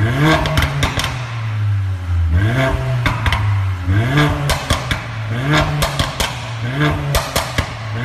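Mercedes A45 AMG's turbocharged 2.0-litre four-cylinder through an Armytrix aftermarket exhaust, revved in quick blips from idle, about six of them. Each rev falls back with a rapid crackle of sharp pops from the exhaust.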